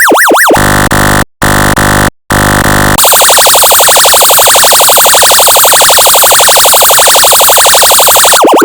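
Synthesized emergency siren tones made with an audio function generator. A fast up-and-down yelp ends about half a second in; a harsh buzzing horn tone follows in three blasts with two short breaks; from about three seconds a very rapid warbling tone holds steady; a new slower sweeping siren starts near the end.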